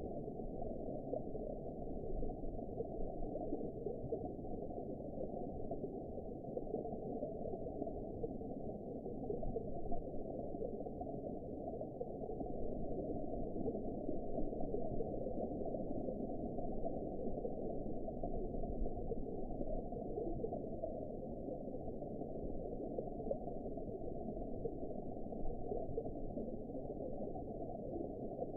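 Steady, muffled underwater ambience: an even, low rush of water noise with no high tones at all, rising and falling slightly in level now and then.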